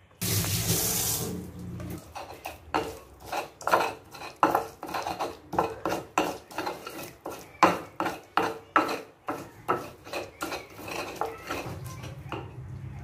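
Tap water running onto a hand for about two seconds, then a stone pestle grinding and knocking in a stone mortar, many irregular strikes about two to three a second, as a spice paste is ground.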